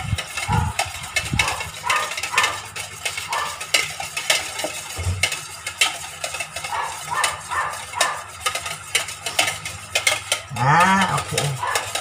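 A metal utensil stirring chiffon cake batter in a stainless steel mixing bowl, with quick repeated scrapes and clinks against the bowl. Near the end a short low call, rising then falling in pitch, sounds for about a second, louder than the stirring.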